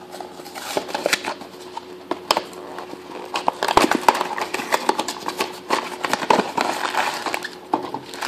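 Hands tearing open and handling a small cardboard blind box, with scraping, tearing and crinkling of cardboard and packaging: scattered small crackles at first, growing busier and louder about halfway through.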